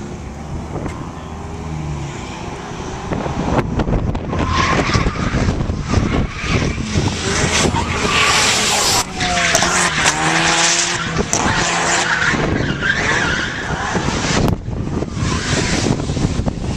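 A drift car's engine revving up and down as its tyres squeal and skid through a long slide. The tyre noise grows loud about four seconds in.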